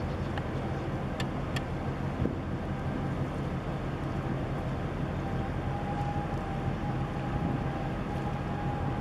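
Low, steady drone of a large container ship's engine as the ship passes close by under way, with wind buffeting the microphone. A faint steady high tone comes in about halfway through.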